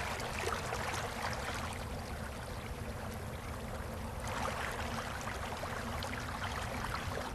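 Meltwater running and trickling among melting snow and ice: a steady babble of small splashes and gurgles, busier in the first couple of seconds and again from about four seconds in.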